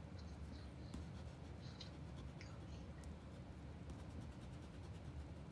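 Faint rubbing of a block eraser on drawing paper, erasing pencil construction lines, over a low steady hum.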